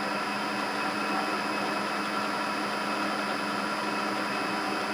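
Clausing 8520 vertical milling machine running steadily with its spindle turning, an even motor hum with no cutting sounds, while the cutter is brought down to touch off on the workpiece.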